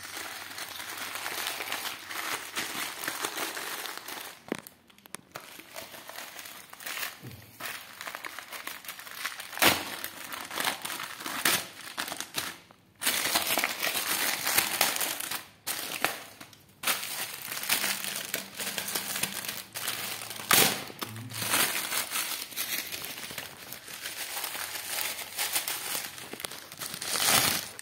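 Black plastic courier mailer bag being handled and pulled open, crinkling and rustling in irregular bursts with brief pauses and a few sharper, louder crackles.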